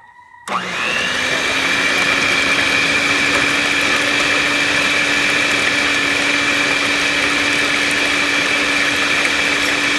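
Electric mixer switched on about half a second in, its motor spinning up quickly and then running at a steady, even whine as the twin beaters churn mashed squash into a thin liquid cake batter.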